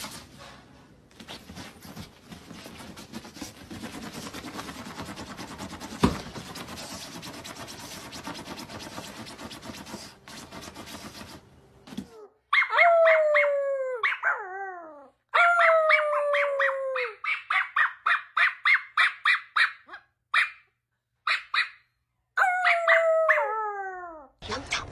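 Small fluffy dog howling: long high calls that slide downward in pitch, three of them, with a quick run of short yips in between at about three a second.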